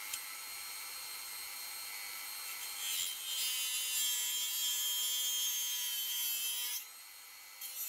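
Dremel rotary tool with a cut-off disc, spinning with a steady high whine. From about three seconds in it grows louder and harsher as the disc cuts through the small brass bolts on the switch, then drops away near the end.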